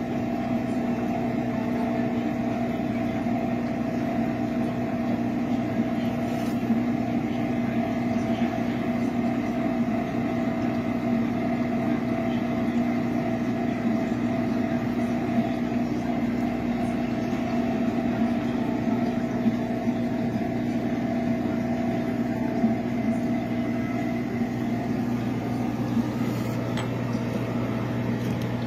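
Steady electric hum of aquarium pumps and filtration equipment running, with a few faint ticks.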